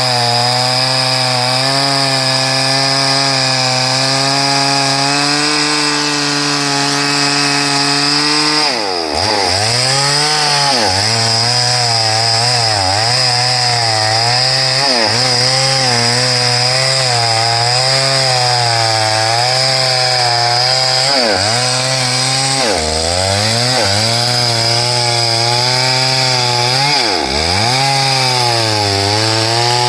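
STIHL MS382 two-stroke chainsaw running at high speed through hardwood. The engine holds a steady pitch at first, then from about nine seconds in its pitch dips and recovers again and again as the chain bites into the wood, under a steady high whine.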